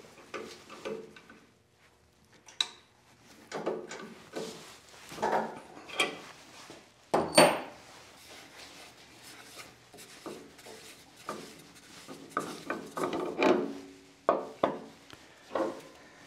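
Handling noises from parts being taken off, set down and slid about: irregular knocks, taps and rubbing, with the sharpest knock about seven seconds in ringing briefly.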